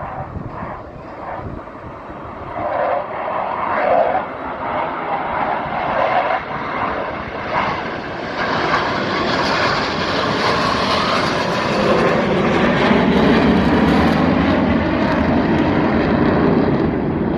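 Blue Angels formation of six F/A-18 jets passing over, their jet engines building from a distant rumble to a loud, steady roar in the second half.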